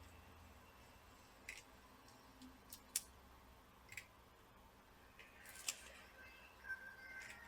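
Small tools being handled at a repair bench: a few faint, sharp clicks and taps spread out over near silence while flux is applied around a replacement chip on a laptop motherboard.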